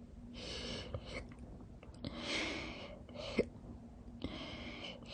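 A woman hiccuping slowly, with sharp, sudden hiccups about a second and three and a half seconds in and noisy breaths between them.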